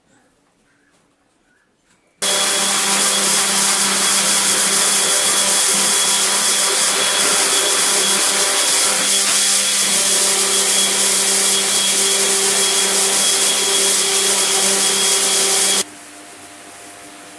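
Random orbital sander running steadily over a wooden picture frame, with a dust-extraction vacuum drawing through its hose: a loud, even whir with steady hums under it. It starts abruptly about two seconds in and cuts off a little before the end, leaving only a faint steady hum.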